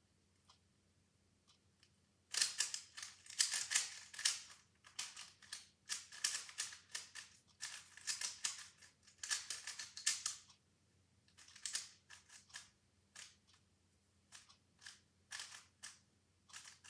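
Plastic speed cube being turned quickly by hand: rapid runs of sharp clicking layer turns for most of the first ten seconds, then a slower scatter of single turns near the end.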